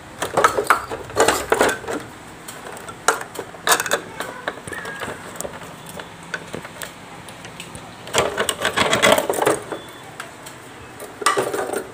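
Four bursts of clattering and rattling from an opened split air-conditioner indoor unit. Its cross-flow blower wheel sits loose on a worn rubber mount and is noisy when it turns.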